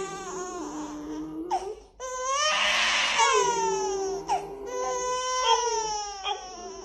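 A baby crying in several long, drawn-out wails with short breaks between them, the harshest about two to three seconds in.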